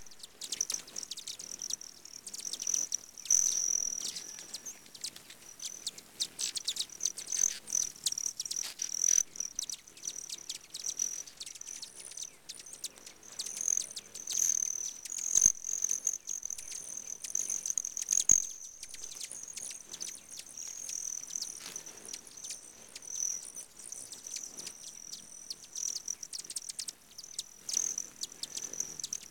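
A crowd of hummingbirds feeding and squabbling at a nectar feeder: many short, sharp, high chips and squeaks over a steady high-pitched trill.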